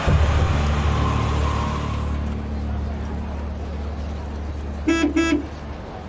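Vintage car engine running with a steady low hum. About five seconds in, the car horn gives two short toots in quick succession.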